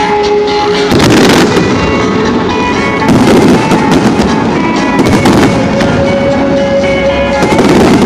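Fireworks going off: several loud bursts about two seconds apart with crackling in between, over music with long held notes.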